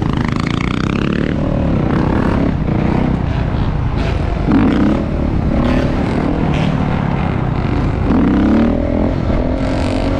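Dirt bike engine running with a steady low rumble, revving up about four and a half seconds in and again at about eight seconds.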